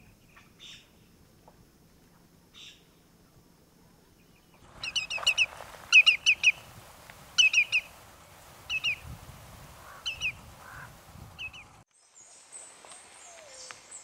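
Lesser yellowlegs calling: short, clear whistled notes in quick groups of two or three, repeated several times from about five seconds in. Fainter single calls come before them.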